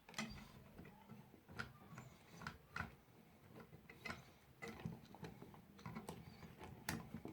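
Faint, irregular clicks and light taps of small parts being handled as a homemade lathe is taken apart.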